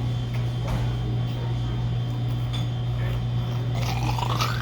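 Jell-O being sucked up through a drinking straw, with a few faint short slurps and a rising, squeaky slurp near the end, over a steady low hum.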